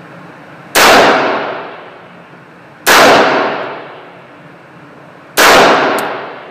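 Three single shots from an AR-15 rifle fitted with a David Tubb buffer spring, fired about two seconds apart. Each shot echoes away over about a second, and a short tick follows the third.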